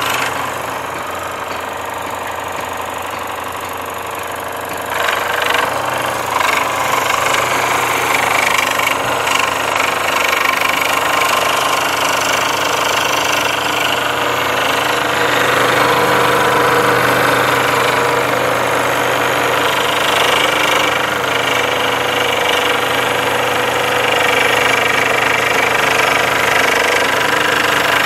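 Makita scroll saw running, its blade chattering up and down as it cuts through thin plywood. The steady buzz is quieter for the first few seconds and grows louder from about five seconds in.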